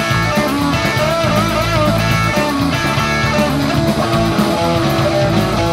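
Punk rock song in an instrumental guitar break with no singing: plucked electric guitar over the full band.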